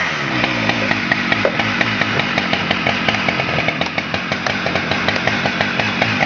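Husqvarna 394 XP chainsaw's 94 cc two-stroke engine running, its revs falling from a blip near the start and then running steadily.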